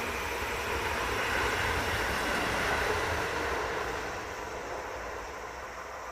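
Seibu Ikebukuro Line electric train passing over a level crossing. The train noise is loudest in the first three seconds, then fades as the train moves away.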